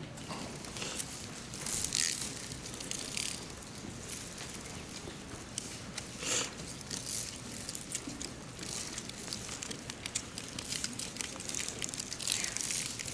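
Many abacuses clicking at once, a dense, irregular clatter of beads flicked by many hands, with short rustles of paper sheets now and then.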